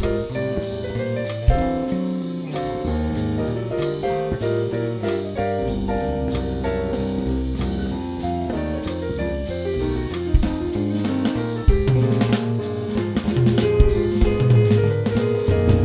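Jazz with the drum kit to the fore: a fast, steady cymbal beat over a moving low line and other pitched instruments.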